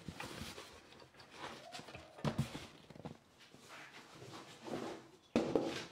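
Cardboard box and a metal-bodied vacuum clamp unit being handled during unpacking: rustling and scraping of cardboard, a few knocks, and the loudest thud with a scrape near the end as the unit is moved onto the wooden bench.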